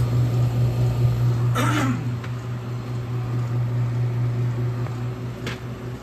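Compressor of a single-glass-door reach-in refrigerator running with a steady low hum, on a refrigerant charge that was just topped up because it was low.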